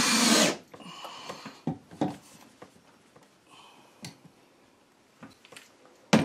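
Cordless drill running into the wooden window framing, stopping abruptly about half a second in. A few light knocks and clicks follow, with a sharper thump near the end.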